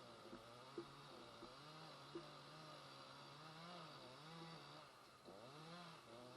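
A faint engine running, its pitch wavering up and down as the revs change, with two short sharp clicks about one and two seconds in.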